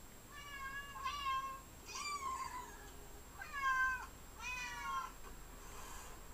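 Recorded kittens meowing, played back through a laptop's speakers: about five short, high-pitched meows spread across a few seconds.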